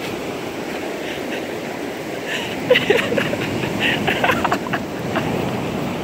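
Ocean surf washing onto a sandy beach, a steady rushing noise with some wind on the microphone. Through the middle, short high calls from a flock of gulls flying over the surf.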